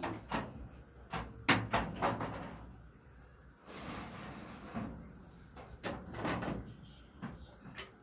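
Clicks, knocks and clatter from a metal pigeon cage being handled: its galvalume droppings tray slides back in with a short scraping rush a little before halfway, and the small compartment doors click on their latches and flip open. The sharpest knock comes about a second and a half in.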